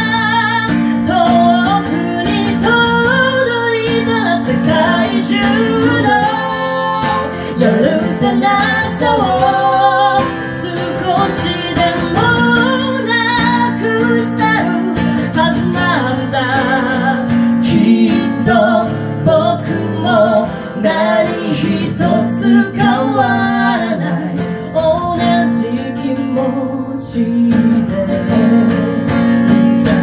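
A woman singing with acoustic guitar accompaniment, an acoustic duo performing a song.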